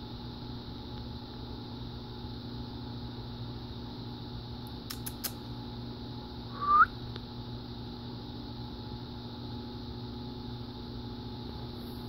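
A steady mechanical hum runs throughout. About five seconds in come three faint clicks, and near seven seconds one short rising squeak, the loudest sound.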